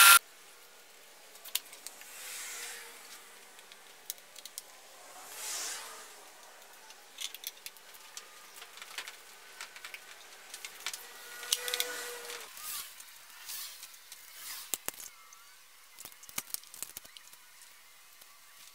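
Wooden strips being handled and laid onto metal bar clamps: scattered light knocks and clicks with a few soft sliding rustles. It opens with a table saw that cuts off abruptly in the first instant.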